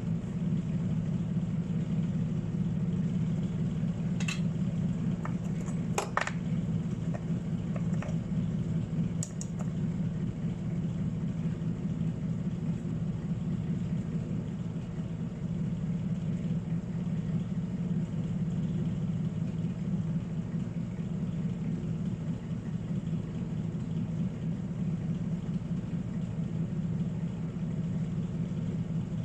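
Steady low machine hum, like a small motor or fan running, with a few light clicks about four to ten seconds in.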